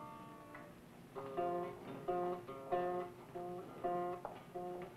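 Guitar music. A chord rings out and fades, then about a second in short plucked chords start in a steady rhythm of about two a second.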